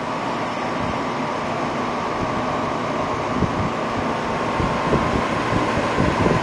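Nakatomi MAC-20 portable spot air conditioner running in dehumidify mode: a steady rush of fan air with a faint steady whine, cutting in abruptly. Irregular low buffeting comes in from about three seconds in.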